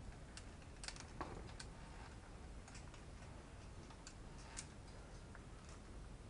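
Faint, irregular clicks and light taps from a climber moving on a via ferrata: metal climbing gear and boots on rock. The strongest come about a second in and again past four and a half seconds.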